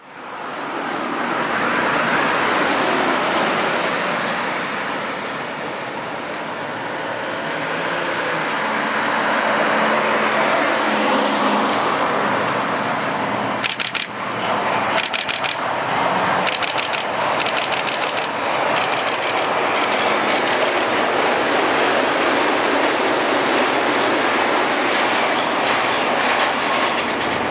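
Shonan Monorail 5000-series suspended monorail train running along its elevated track beam. It gives a steady rushing noise, and between about 14 and 21 seconds there is a run of sharp clacks as it passes.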